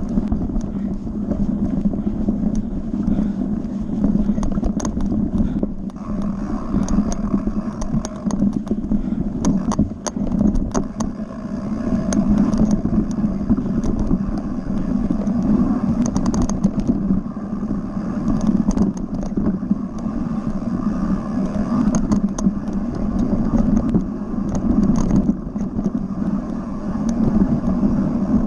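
Mountain bike riding fast down a dirt forest singletrack: a steady low rumble of the tyres on the trail, with frequent sharp rattles and clicks from the bike over bumps.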